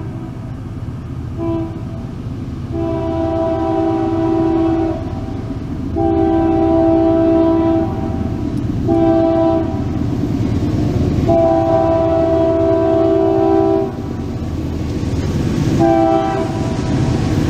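Union Pacific diesel locomotive's multi-note air horn sounding the grade-crossing signal as the train approaches: two long blasts, a short one and a long one, then another blast begins near the end, over the steady low rumble of the locomotive.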